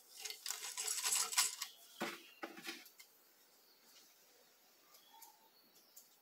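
Rustling and scraping of a piece of nubuck leather being drawn out from under a sewing machine's presser foot and handled, followed by two short knocks a little after two seconds in, then faint ticks.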